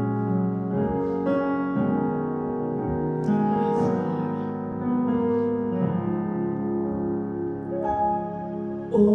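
Keyboard playing slow, held chords that change every second or so, a soft instrumental interlude in a worship service.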